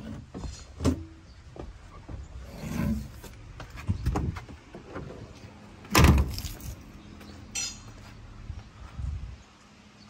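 Scattered knocks, clicks and clunks as someone climbs down out of a truck cab, with one heavy thump about six seconds in.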